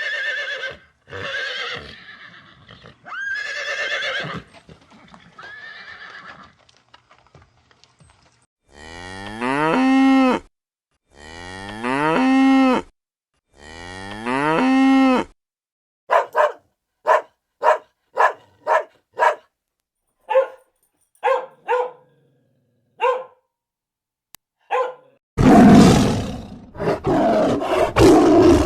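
A run of different animal calls one after another: some higher, wavering calls first, then three long cow moos of about two seconds each in the middle, then a string of short yelping calls, and a loud roar near the end.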